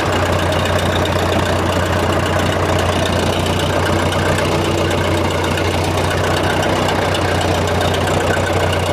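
An engine idling steadily at a constant level, with an even low hum.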